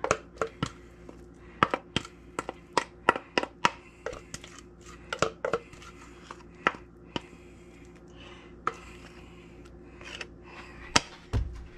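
Irregular sharp taps and knocks of a spatula against a mixing bowl and metal loaf pan as cake batter is scraped into the pan. The taps come thick and fast at first, thin out in the middle, and pick up again near the end.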